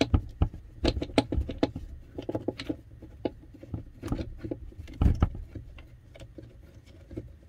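Irregular light clicks and taps as a long screw is turned out by hand from the plastic flush-valve housing of a Dometic Sealand RV toilet, with one louder knock about five seconds in.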